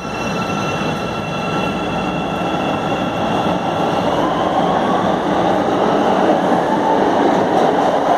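Chicago 'L' subway train pulling out of an underground station and accelerating past: a steady rumble of wheels and running gear that grows a little louder, with several high tones early on and a whine rising in pitch from about four seconds in.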